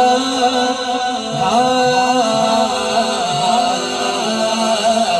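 A man's voice chanting a naat, an Urdu devotional song, unaccompanied into a microphone. He holds long, wavering notes that glide up and down.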